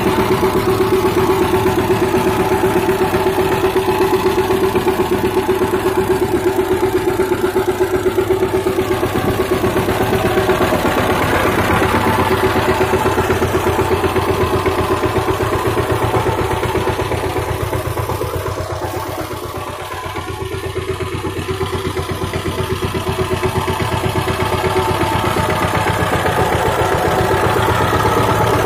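Power tiller's single-cylinder diesel engine running steadily with an even chugging pulse. It grows quieter for a few seconds about two-thirds of the way through, then comes back up.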